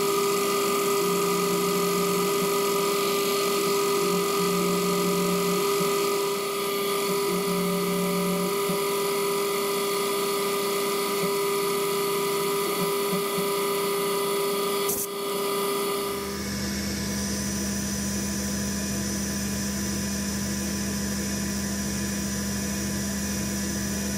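Milling machine spindle running with a steady motor whine while a gold-coloured cutting tool bores into the end of a metal rod clamped in the machine vise. About fifteen seconds in there is a click, and the whine gives way to a different, lower steady machine hum.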